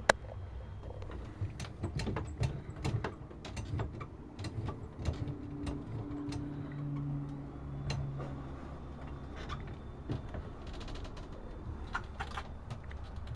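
Scattered clicks and knocks aboard a small electric boat that is moving, over a low steady hum. A steady pitched hum rises for about three seconds in the middle.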